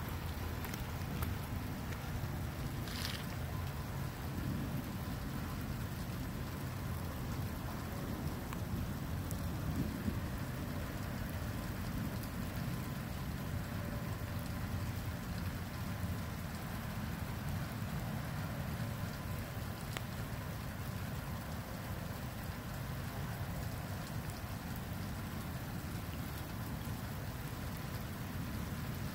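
Steady rain falling, a constant hiss over a low rumble, with a few faint ticks.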